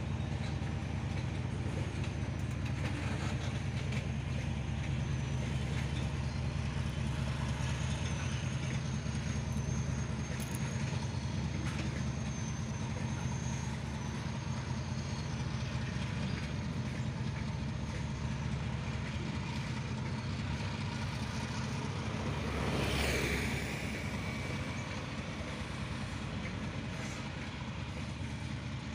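Covered freight wagons rolling slowly along the rails, their wheels making a steady low rumble. A brief sweep falling in pitch, the loudest moment, comes about three-quarters of the way through.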